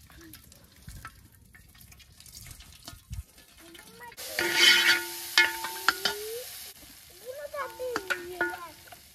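A loud sizzling hiss begins about four seconds in and lasts about two and a half seconds, as a hot cooking pot is lifted off a wood campfire. Before it come a few faint clinks of a pot and ladle.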